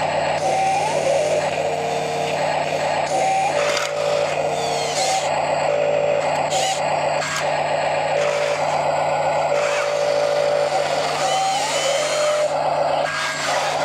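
Huina RC wheel loader at work: its sound unit's simulated truck engine runs steadily, with short rising whines again and again as its motors drive and lift the bucket, and a few brief air-brake-like hisses.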